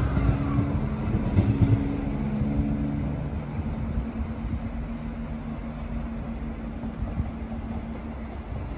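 Diesel multiple unit pulling away and receding, its engine drone steady and fading gradually.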